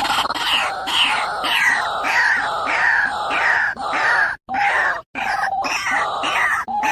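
White-breasted waterhen (ruak-ruak) calling: loud, harsh, repeated croaking notes, about two a second, broken twice by abrupt short gaps after the middle.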